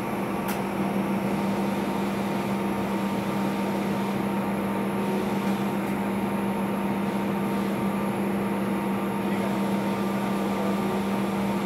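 Steady drone inside an Airbus A320 cabin: the rush of the ventilation air over a constant low hum and a faint higher whine from the aircraft's machinery, with one light click just after the start.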